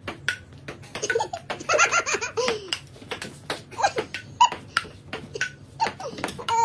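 Hearty laughter, loudest about two seconds in, over a run of sharp clicks from a ping-pong ball bouncing off the table and paddle.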